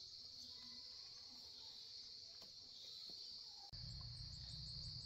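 Steady, high-pitched insect chorus chirring in the countryside. A low rumble comes in suddenly near the end.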